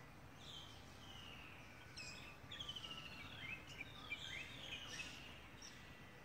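Faint background birdsong: several birds giving overlapping falling whistled phrases and quick trills, over a low outdoor hiss.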